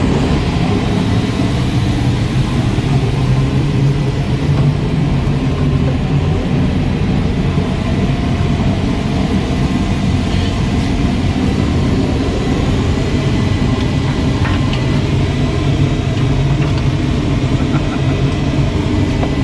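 Steady, loud mechanical rumble of running engine equipment, unchanging throughout, deepest and strongest at the low end.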